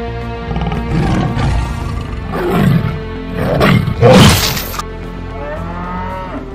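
Background music under cartoon fight sound effects: repeated lion roars and growls, a loud hit about four seconds in, and a wavering animal cry near the end.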